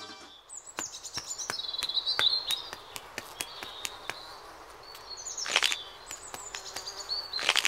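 High chirping calls in runs of short falling chirps: one run about a second in, another around five and a half seconds in, and more near the end. Scattered light ticks sound between them.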